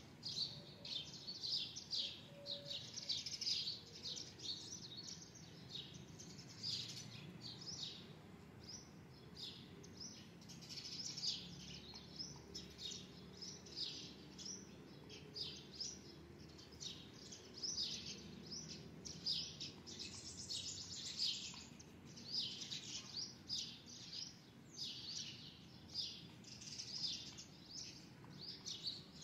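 Birds chirping: a steady stream of short, high chirps, several a second, with no pauses.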